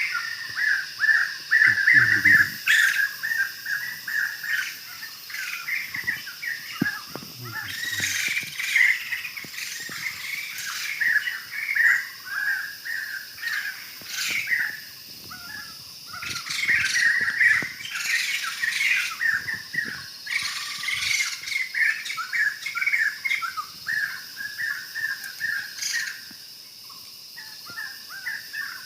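A chorus of birds chirping and chattering, with many quick calls overlapping throughout and louder calls now and then.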